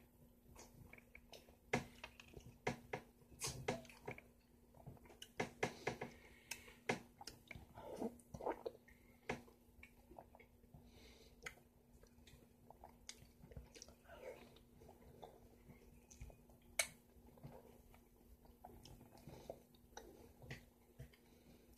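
Close-up chewing of soft, ripe yellow honeydew melon eaten from a spoon: irregular wet mouth clicks and smacks, a few sharper than the rest, over a faint steady hum.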